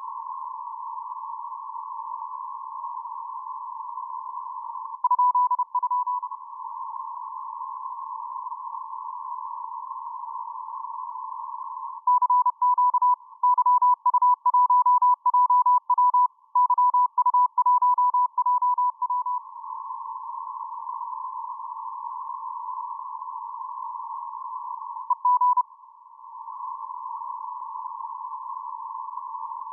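Morse code (CW) heard through an amateur radio receiver on the 10-metre band: a steady hiss of band noise with a clear beeping tone keyed on and off in dots and dashes. There is a short burst about five seconds in, a long run of characters from about twelve to nineteen seconds, and one more brief tone near twenty-five seconds.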